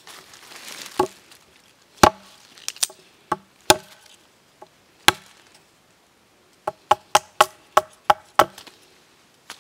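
Machete blade chopping a thin bamboo strip against a thick green bamboo pole: sharp wooden knocks, scattered at first, then a quick run of about seven near the end, some four a second.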